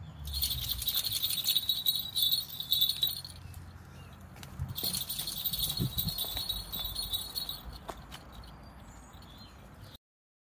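Light metallic jingling in two bouts of about three and two and a half seconds, with a fainter trail after the second. All sound cuts off suddenly just before the end.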